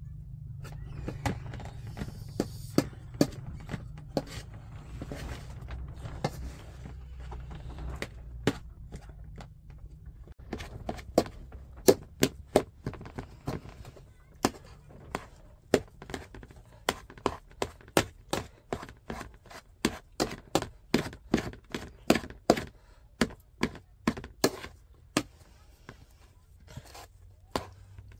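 Metal spoon knocking and scraping against a large aluminium bowl as boiled potatoes are mashed in it. Sharp taps come sparsely at first, then settle into a steady run of about two or three a second from the middle on.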